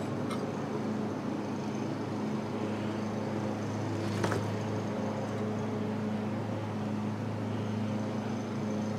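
Steady low background hum throughout, with one short sharp knock about four seconds in as stainless-steel overriders and their packing are handled on a matted table.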